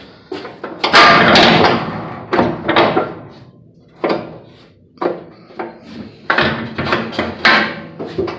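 Aluminium compartment gates and panels of a 2004 Wilson 50-foot cattle trailer banging and clanging: a loud rattling clang about a second in, then a run of sharper metal knocks.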